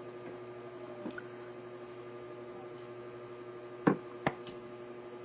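Steady low hum of the room, with two sharp clicks a little under half a second apart about four seconds in.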